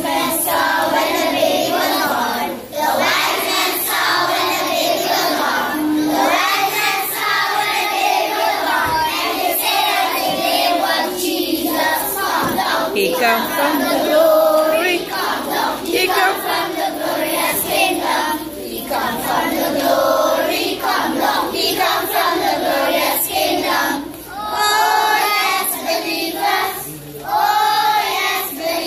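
A choir of young children singing a Christmas carol together.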